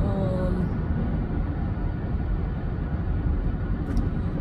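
Steady low rumble of road and engine noise inside a moving car's cabin. There is a short click about four seconds in.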